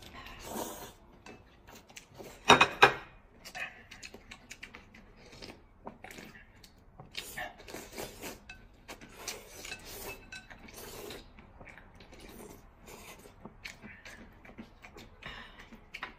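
Rice noodles being slurped and eaten from porcelain bowls, with short irregular slurps, chewing and chopstick-on-bowl clinks; the loudest sounds come as a pair about two and a half seconds in.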